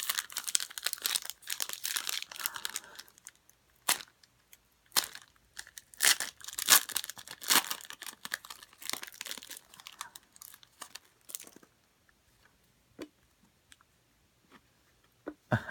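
Plastic card-pack wrapper being torn open and crinkled by hand, a run of irregular rips and crackles, then a few light handling clicks as the cards come out.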